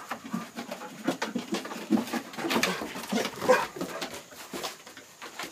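Dog whining in short, repeated whines, mixed with scattered clicks and taps.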